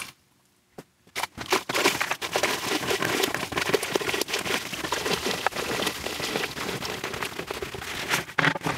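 Dry plaster powder poured from a plastic bucket into a bucket of water to slake. It falls in a steady stream, giving a dense hiss with many small crackles that starts about a second in.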